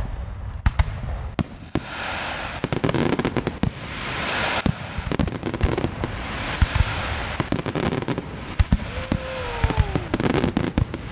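Aerial fireworks shells bursting in quick succession, with many sharp booms and cracks and stretches of crackling. A tone glides down in pitch about nine seconds in.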